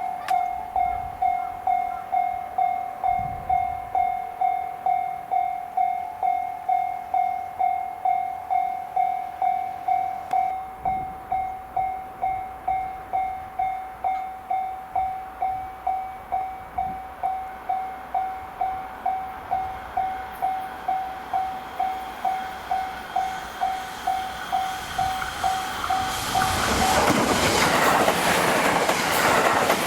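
Japanese level-crossing warning bell ringing steadily at about two strikes a second while the barriers are down, then a JR Hanwa Line train passing through the crossing at speed from about 26 seconds in, its wheel and running noise swelling loud over the bell.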